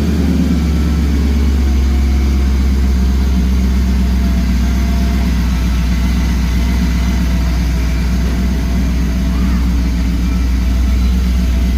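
Freshly built V8 of a 2001 Ford SVT Lightning pickup idling steadily, run up just after its first oil change and a new oil pressure sender.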